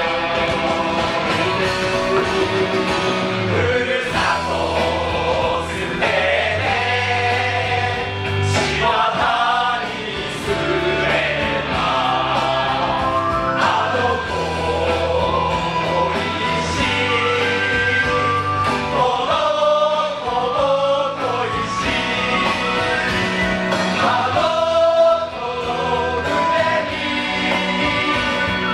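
A stage song: several voices singing together over a band accompaniment with a steady, shifting bass line.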